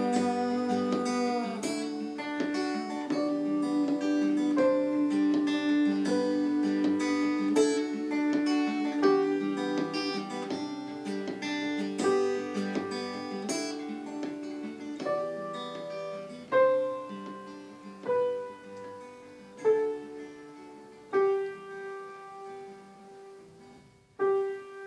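Acoustic guitar and piano play the instrumental close of an acoustic song, with no singing. In the second half it thins to single chords struck about every one and a half seconds, each left to ring and fade, growing quieter toward the end.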